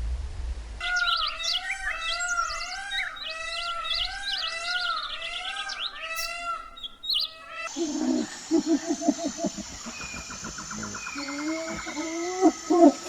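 Birds chirping: a quick run of repeated arching calls for about seven seconds, then after a sudden cut a different stretch of lower, rapid call notes.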